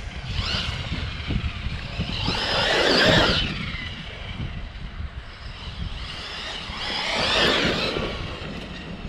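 A Losi RZR Pro R RC side-by-side's brushless electric motor whining up and falling away in two passes, about two and seven seconds in, the first the loudest, over a steady low rumble.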